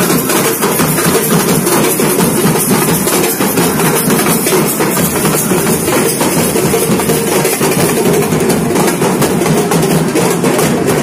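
A procession drum troupe of many drummers playing loud, dense, unbroken massed drumming.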